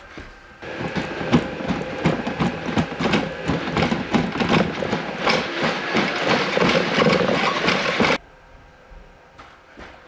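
Quadruped robot dog walking down carpeted stairs, heard close up: rapid clicking and clattering from its leg mechanism and feet, over a faint steady whine from its motors. The noise stops abruptly after about eight seconds, leaving faint, sparse taps.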